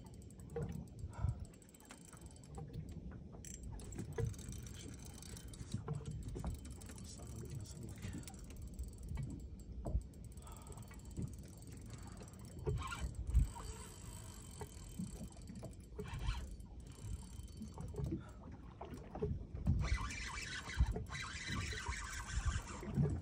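Wind and water noise aboard a small fishing boat: an uneven low rumble with scattered knocks. A brighter hiss rises for a few seconds near the end.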